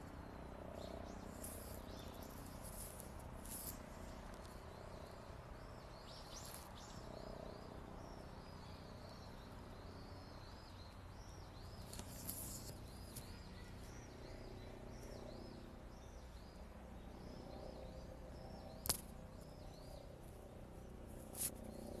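Faint outdoor ambience: small birds chirping, a long run of short, repeated high notes, over a steady low background hum. Two sharp clicks sound near the end.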